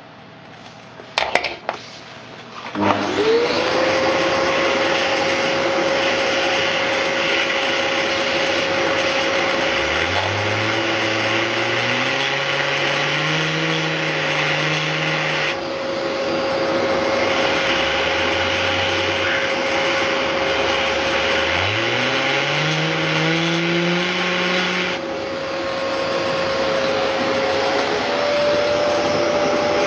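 A vacuum cleaner starts about three seconds in, after a couple of clicks, and runs steadily with a constant whine over a loud rush of air. Its airflow spins a PC case fan that works as a generator to light an LED. A lower hum twice rises in pitch.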